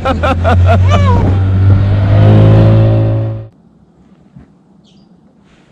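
Outboard motor running steadily at speed, its pitch climbing a little about two seconds in, then cutting off suddenly about three and a half seconds in.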